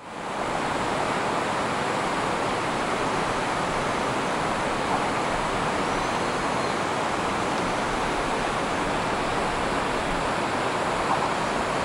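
Steady rushing of a rocky river's rapids in a gorge, fading in at the very start and then holding an even level.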